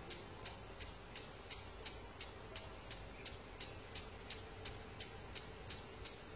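Impact sprinkler ticking evenly, about three clicks a second, as it sprays and turns across a field of plants, over a faint steady hiss.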